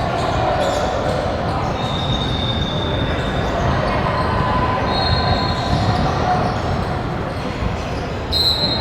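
Basketball being dribbled and bounced on a gym floor during a game, with a steady run of thuds. Voices of players and spectators echo in the hall, and there are a few short, high squeaks.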